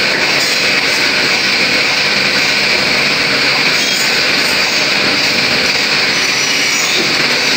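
Automatic wood pallet cut-off saw running: a steady, loud, high-pitched noise from the spinning saw and its motor, with no breaks.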